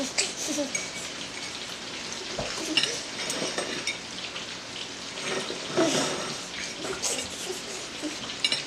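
Metal forks clinking and scraping against plates as people eat, a few short taps scattered through, over a steady hiss.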